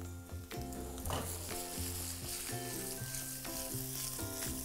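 Hot oil sizzling steadily in a kadai with a tempering of fenugreek seeds, cumin, asafoetida and chopped coriander stems. Near the end, boiled potato cubes drop into the pan.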